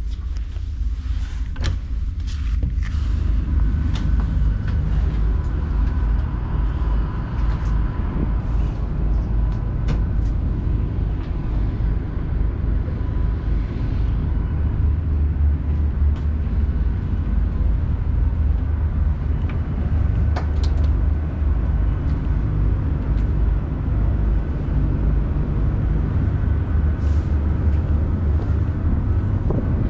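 Ro-ro ferry MV Varagen's engines and machinery running with a steady low rumble, which grows louder a few seconds in and then holds. A few clicks come near the start, and a faint steady whine sits above the rumble.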